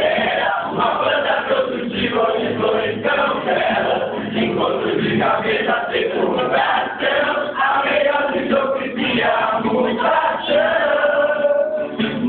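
A group of voices singing together in chorus, with one note held for about a second near the end.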